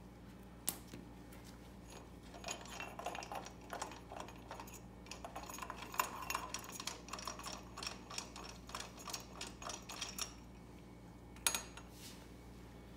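Small metal clicks and rattles as a socket ratchet works loose the 10 mm bolt holding a carburetor float bowl and the bowl is handled. A run of quick, irregular clicks lasts from a couple of seconds in until about ten seconds, with a single sharp click near the end.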